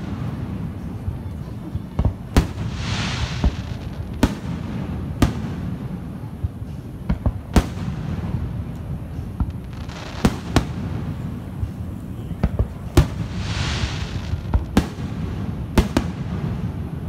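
Aerial fireworks bursting: about a dozen sharp booms at irregular intervals, several followed by a second or so of crackling. A steady low rumble runs underneath.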